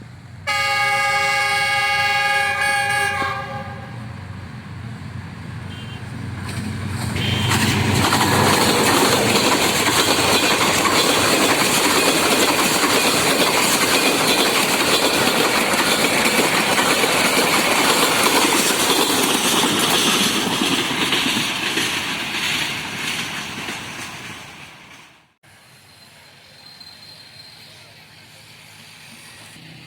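A train horn sounds one blast of about three seconds, then a train passes at speed with a loud rush and rail clatter for about fifteen seconds before fading. The sound cuts off suddenly about 25 seconds in.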